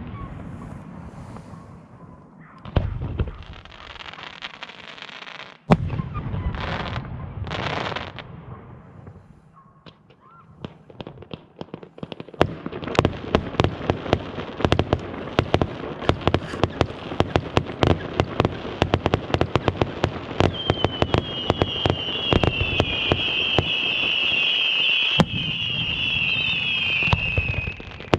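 Fireworks going off: a few sharp bangs and two short hissing rushes, then from about twelve seconds in a dense, rapid crackling of many small pops. A high, wavering whistle joins in for the last several seconds, with one louder bang among them.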